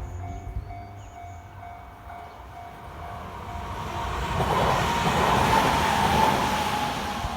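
The level-crossing warning bell rings its last few pulses and stops, then a train runs past with a rushing rumble that swells to its loudest about two-thirds of the way through and begins to fade.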